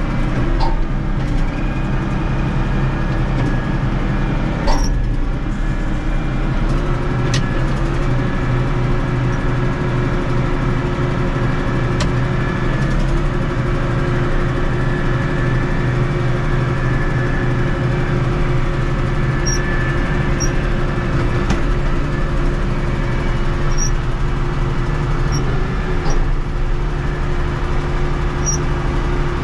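A vehicle engine running steadily while driving, with small shifts in engine speed and a few light clicks and knocks.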